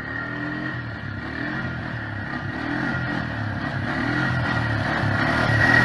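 Quad bike engine running and being revved, its pitch rising and falling several times, getting louder toward the end, with a steady high whine alongside.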